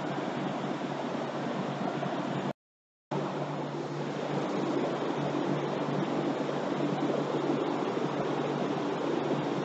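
Bosch A/C recovery and recharge machine running with a steady mechanical hum and rushing noise. The sound cuts out completely for about half a second about two and a half seconds in, then carries on as before.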